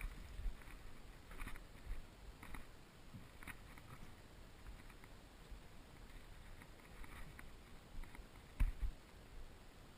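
Footsteps with rustling gear, faint soft thuds coming about once a second, as a player walks; the loudest thud falls near the end.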